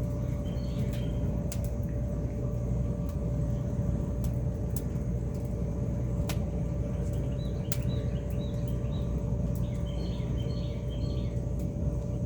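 Outdoor ambience: a steady low rumble with faint bird chirps, more of them in the second half, and scattered sharp ticks.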